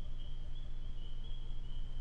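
A steady, unbroken high trilling chorus from the night woods, pulsing slightly, over a low constant rumble.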